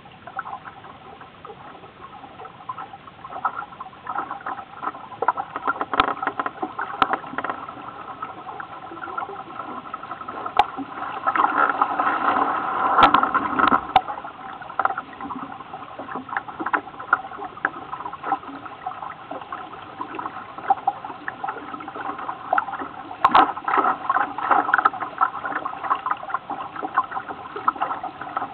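Small motorboat under way: a steady engine hum with water splashing and slapping against the hull, and scattered sharp knocks. It swells louder for a few seconds about halfway through.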